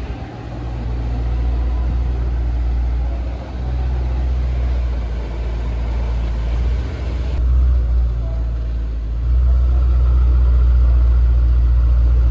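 BRABUS GT800's twin-turbo V8 running at a steady idle with a deep rumble, getting louder about nine seconds in.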